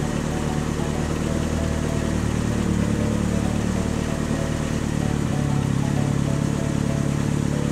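Engine sound effect for an animated toy school bus driving: a steady, continuous motor hum with no change in speed.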